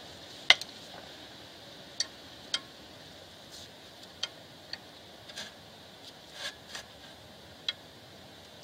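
Scattered small metallic clicks and taps from a hex bit and socket being fitted to a brake rotor's retaining screw and turned by hand. The sharpest click comes about half a second in, and lighter ones follow at irregular intervals.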